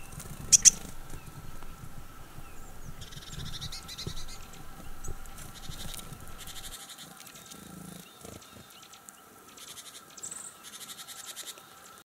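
A dog moving through deep snow, with two sharp knocks about half a second in. Short, high trilling calls of small birds come and go in the background.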